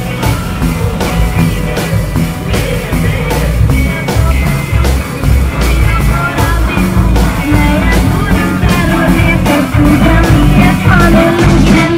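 Upbeat rock backing music with a steady drum beat and bass line.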